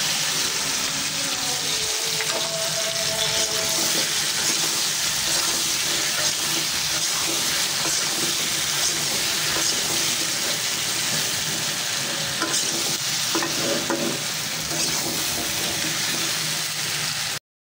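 Cut taro pieces frying in hot oil in a karahi: a steady sizzle that cuts off suddenly near the end.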